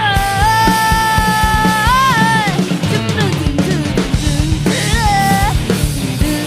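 Rock band playing with drum kit, bass and guitar, and a singer holding one long high note for about two seconds that bends up and falls away at its end, then a short sung phrase about five seconds in.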